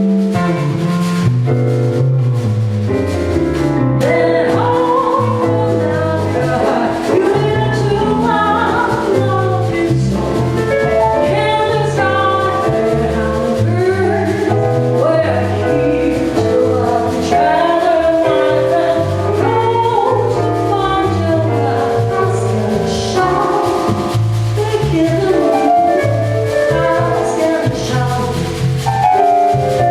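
Live jazz band playing: piano, bass and drum kit, with a sung melody over a moving bass line.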